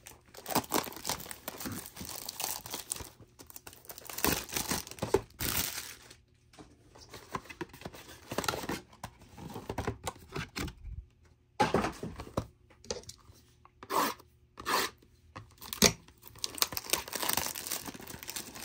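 Packaging being torn open and crinkled in irregular spurts with brief pauses, as a sealed box of trading cards is unwrapped and opened.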